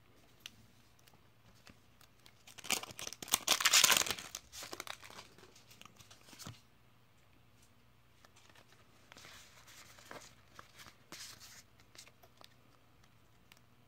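Foil wrapper of a Pokémon booster pack crinkling and tearing open in a burst of loud rips a few seconds in, followed by fainter rustling as the cards are handled.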